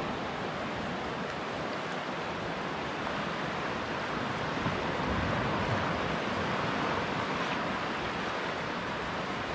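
Small surf waves washing up on a sandy beach: a steady, even hiss of water.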